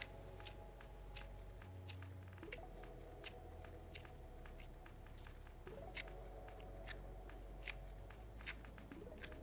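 Homemade cold-porcelain clay of cornstarch and white glue, still wet and slime-like, being squished and stretched in gloved hands. It makes irregular sticky clicks and pops, several a second. A soft steady chord underneath starts again about every three seconds.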